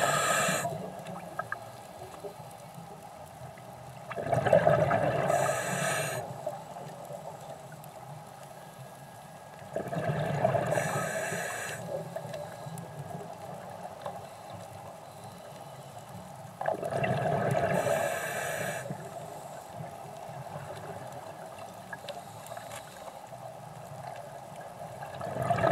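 Scuba diver's regulator exhaust: exhaled breath bubbling out in bursts of about two seconds, four times, roughly every six to eight seconds, with a quieter steady hiss of the underwater background in between.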